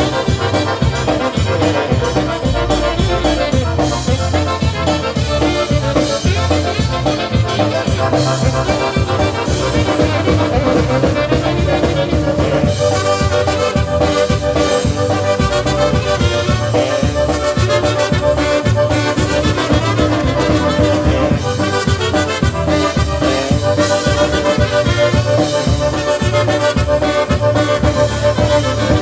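Live polka band playing an instrumental passage with accordion in front over a steady bass beat, stopping right at the end.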